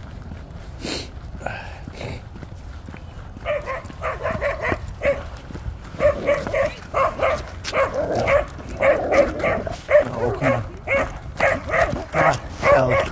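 A dog barking rapidly in high-pitched barks, several a second, starting about three and a half seconds in.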